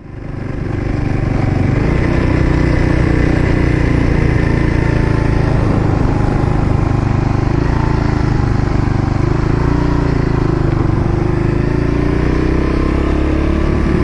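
Yamaha XT250's single-cylinder four-stroke engine running steadily, fading in over the first second, its pitch rising slightly near the end.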